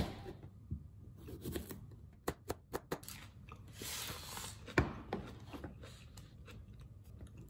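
Small kitchen knife slicing a cucumber on a plastic cutting board: single cuts, then a quick run of about five cuts about two seconds in. Then rustling and a single knock about five seconds in, as a wooden plate of toast is set down on the counter.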